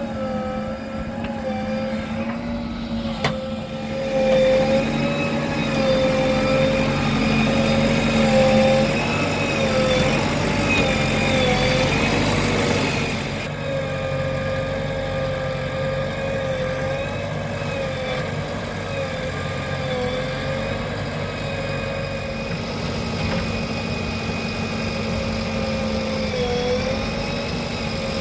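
Heavy diesel machinery engine running steadily. Its note rises and gets louder as it works harder from about four seconds in, then drops back to a steady run about thirteen seconds in. A single sharp click comes just before the rise.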